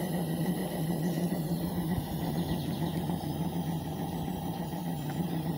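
Butane-fired live-steam model locomotive running steadily on rollers: a continuous mechanical running noise with a steady low hum.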